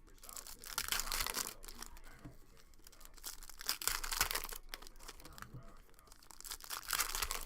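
Trading card pack wrappers being torn open and crinkled by hand, with the rustling swelling up about three times.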